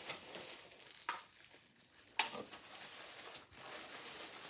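Plastic bubble wrap crinkling and rustling as a wrapped item is lifted out of a box and handled, with sharp crackles about one and two seconds in.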